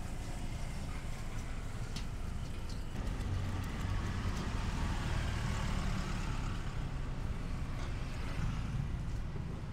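Steady low rumble of street traffic, with a couple of faint knife clicks about two seconds in as limes are cut.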